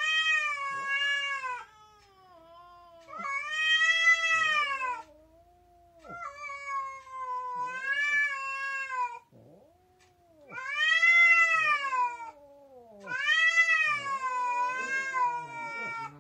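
A domestic cat yowling in anger: five long, drawn-out wails that rise and fall in pitch, joined by a lower moaning sound between them.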